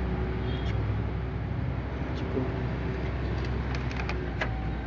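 Steady low background rumble with a few faint, sharp clicks in the second half.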